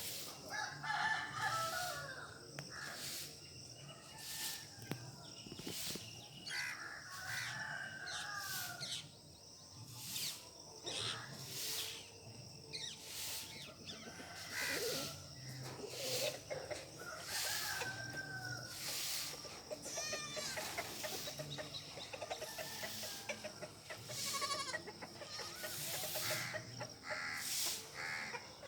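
Chickens clucking with a rooster crowing, a run of short repeated calls throughout and longer gliding calls now and then.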